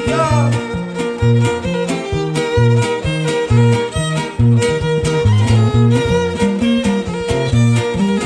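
Huasteco string trio playing an instrumental passage: a bowed violin carries the melody over the steady strummed rhythm of a jarana huasteca and a huapanguera.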